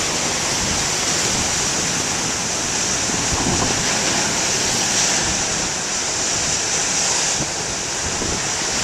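Big ocean waves breaking and washing ashore, a steady, continuous rush of heavy surf.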